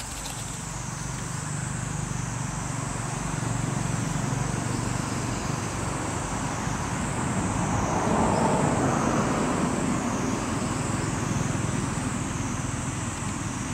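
Steady road-traffic noise, swelling as a vehicle passes about eight seconds in, with a faint high wavering tone above it.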